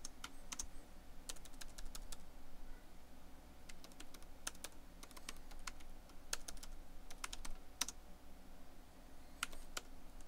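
Typing on a laptop keyboard: short, irregular runs of key clicks with pauses between them.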